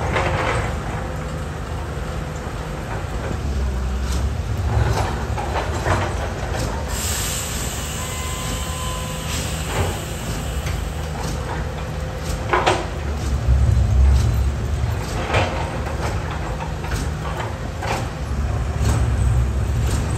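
Cat 320D hydraulic excavator's diesel engine running with a steady low rumble while its bucket digs into soil and rock, with repeated knocks and clanks as rocks and the bucket strike.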